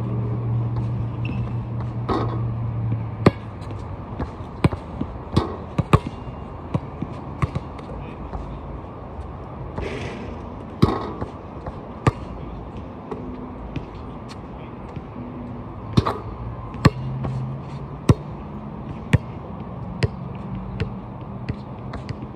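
A basketball bouncing on a hard court, a string of sharp, irregularly spaced bounces. A steady low hum runs underneath, strongest for the first few seconds, then fading and returning later.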